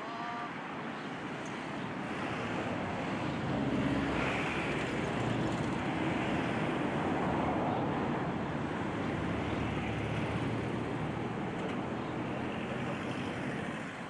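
Steady rushing outdoor background noise, a little louder through the middle, with no clear bird calls.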